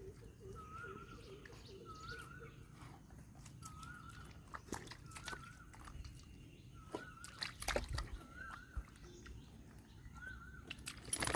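A bird repeating a short, wavering call about once a second, with faint scattered clicks and knocks.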